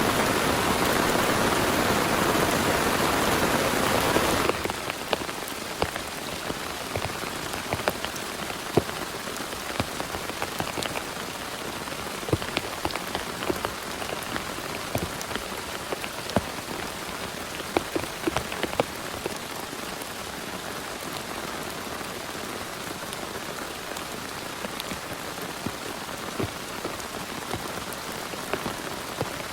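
Heavy rain: a dense, loud hiss for about the first four and a half seconds, then a sudden cut to steadier, quieter rainfall in which many separate drops can be heard striking a surface.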